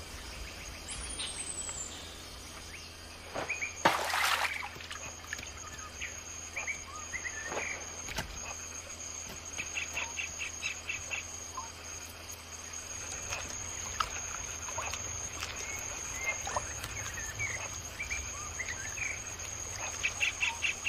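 Forest ambience: a steady high-pitched insect whine under scattered bird chirps and a couple of short, rapid chirping trills. A brief loud noise comes about four seconds in.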